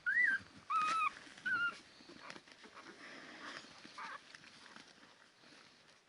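Ten-day-old Labrador retriever puppies whining: three short, high squeaky whines in the first two seconds and a fainter one about four seconds in, over soft shuffling.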